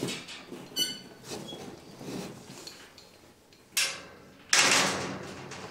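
Hollow plastic ball-pit balls clattering and rattling as they spill from a tipped cardboard box, in two loud rushes near the end, with a short high squeak about a second in.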